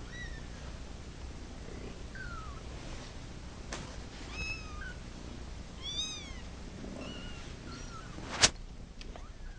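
A kitten mewing over and over in short, high-pitched cries, the way a kitten calls for its mother. A single sharp knock sounds about eight and a half seconds in.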